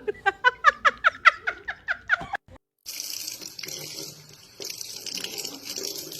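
A fast run of short, high, rising squeaks, about five a second, stops after about two seconds. Then, after a brief silence, water runs from a tap with a steady hiss.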